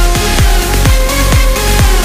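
Background electronic dance music with a deep kick drum beating steadily a little over twice a second under a synth melody.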